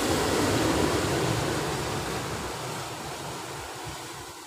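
Sea surf washing in over shore rocks: a surge of rushing water that is loudest about a second in and slowly dies away.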